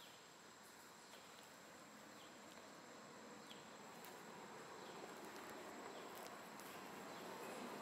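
Faint outdoor ambience: a steady high-pitched insect drone, with a few faint short chirps and a soft hiss that grows a little louder in the second half.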